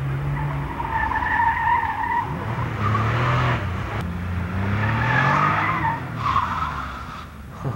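Porsche 911's air-cooled flat-six engine revving up and down as the car is thrown through an autocross slalom. Its tyres squeal in several separate bursts as it changes direction.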